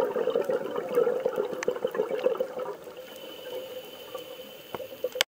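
Rushing water noise full of small crackles that drops in level about two and a half seconds in, with a faint steady high tone over it, then cuts off suddenly near the end.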